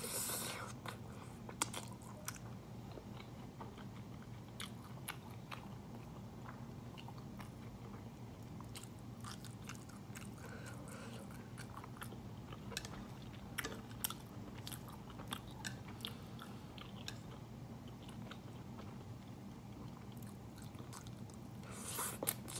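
A person eating Chapagetti black-bean instant noodles. She slurps noodles in once at the start and again near the end, and in between chews with many small wet clicks and smacks over a steady low hum.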